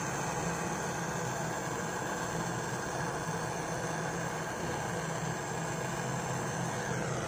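Handheld canister gas torch burning with a steady hiss, its blue flame heating a steel air-rifle chamber for soft soldering.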